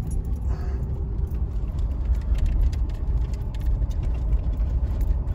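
Low, steady rumble of a vehicle running, with faint crackling over it.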